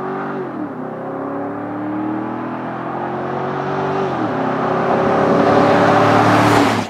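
2013 GMC Sierra Denali's big V8 at full-throttle acceleration in a 0-60 mph run. The engine note climbs steadily in pitch and drops at two automatic upshifts, about half a second in and about four seconds in, and grows louder toward the end.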